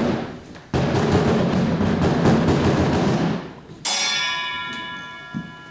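Live percussion: a single drum hit, then a rapid drum roll for about two and a half seconds, then a struck metal percussion instrument, such as a bell or gong, left ringing and slowly fading.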